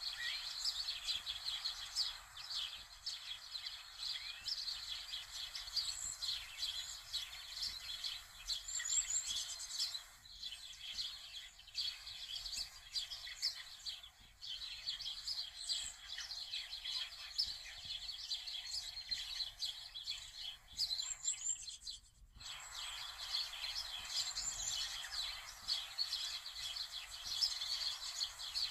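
Dense birdsong: many small birds chirping rapidly and without pause, broken off for a moment a little over twenty seconds in.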